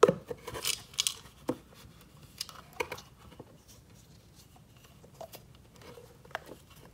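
Scattered small clicks and taps as a coin bank is handled and its bottom plug is pulled out and pressed back in; a sharp click at the very start is the loudest.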